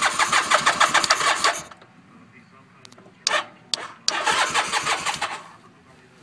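Honda Rebel 450 motorcycle's electric starter cranking the parallel-twin engine on a jump-start, in two bursts of quick, even chugging that each stop without the engine catching.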